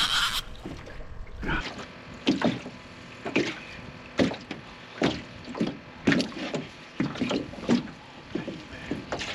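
Choppy wind-driven water slapping against the hull of a small aluminum fishing boat: irregular short knocks and splashes, about one or two a second. A brief high hiss sounds right at the start.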